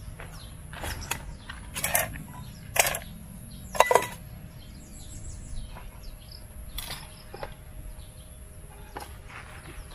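Camping cook pot set clinking and knocking as the nested pots and lids are handled and packed, about six sharp metal knocks, the loudest about two, three and four seconds in, the last of those ringing briefly.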